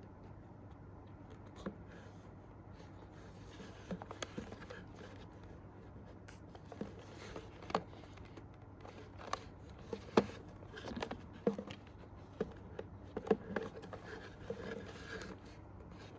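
A small diecast model's box and plastic packaging being handled and opened: scattered clicks, taps and short scrapes, sparse at first and busier from about four seconds in, over a steady low hum.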